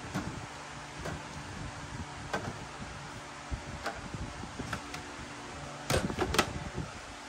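Scattered light clicks and knocks, with a cluster of louder ones a little before the end, over a steady background hum.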